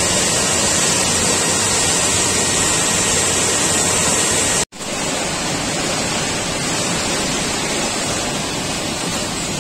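Steady, loud din of snack-factory production machinery, a dense even roar with a high hiss on top. It cuts out for an instant about halfway through and comes back slightly quieter.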